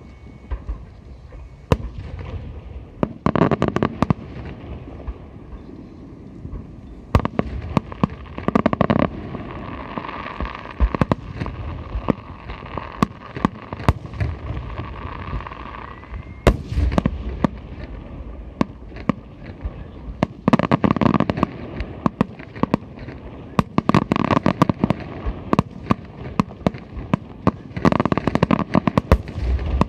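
Aerial fireworks display: repeated sharp bangs of shells bursting, with dense volleys of crackling that come in clusters every several seconds.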